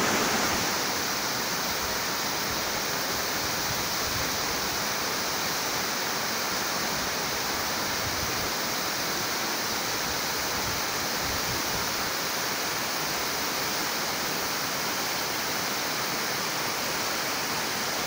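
Mountain waterfall splashing down a rock face: a steady, even rush of falling water.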